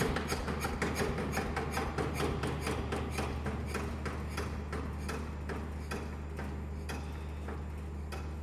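Lister Petter PH1 single-cylinder diesel engine running down to a stop: its firing knocks come slower and slower and fade out over several seconds. The engine has just made a bad noise after being revved, for a reason the owner cannot tell.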